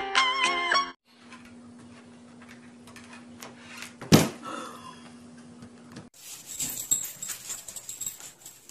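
A short musical phrase ends about a second in. Then comes faint room hum with one sharp thump about four seconds in, as two cats tussle against a wooden dresser. A faint hiss with small scattered clicks follows.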